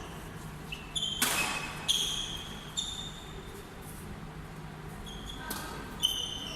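Sports shoes squeaking repeatedly on an indoor court floor during play, with a few sharp knocks, the loudest a little over a second in.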